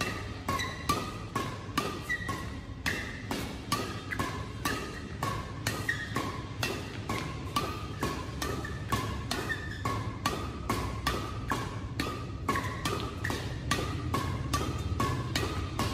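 Badminton rackets striking a shuttlecock in a fast back-and-forth drive exchange at the net: sharp, even hits about three a second.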